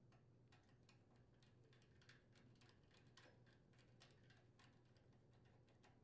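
Faint, irregular light clicks, about three a second, from a hand screwdriver with an E5 external Torx bit turning as the carburetor mounting post is tightened into the intake manifold.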